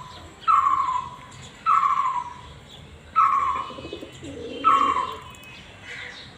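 A bird repeating one short, slightly falling call four times, about every second and a half, with pigeons cooing low and softer in between.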